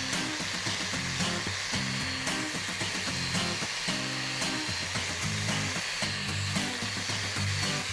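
Background music with a stepping bass line under a steady hiss.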